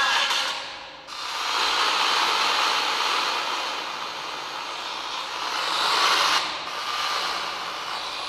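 FM radio static hiss from a smartphone's FM radio speaker as it is tuned off a station: the station audio fades out about a second in, and a steady hiss of an empty or very weak frequency follows.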